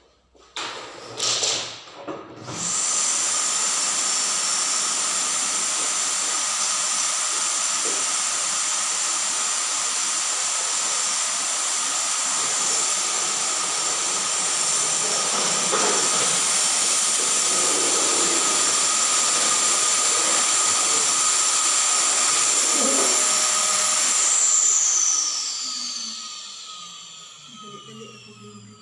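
Vacuum cleaner motor switched on a couple of seconds in and running steadily with a high whine, then switched off near the end, its pitch falling as it winds down.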